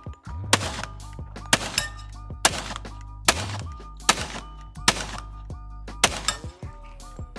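KRISS Vector carbine fired in slow single shots, seven of them about a second apart, each a sharp crack with a short echo, over background music.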